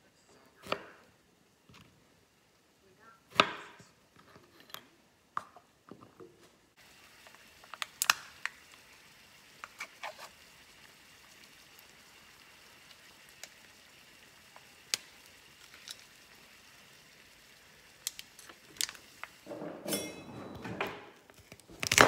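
Food-prep sounds on a wooden cutting board: scattered knocks and taps, with a faint steady hiss through the middle and a busier patch of handling noise near the end.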